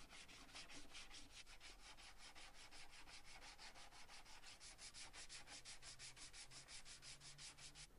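Faint, rapid hand sanding: 120-grit sandpaper rubbed back and forth over pine wood in quick, even strokes, about six a second.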